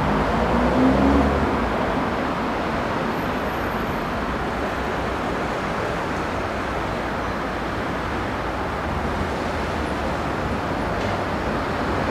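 Intercity train in the station: a whine rising in pitch over the first second or so, then a steady, loud running noise.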